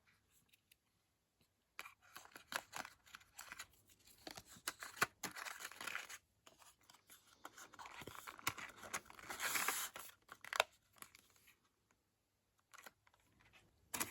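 Packaging being handled and torn open, with irregular rustling and small clicks, loudest near the middle and stopping a few seconds before the end.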